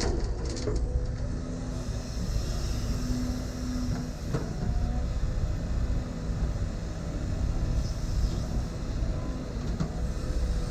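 Diesel engine of heavy earthmoving equipment running steadily, a low rumble with a steady hum, with a couple of light knocks about half a second and four seconds in.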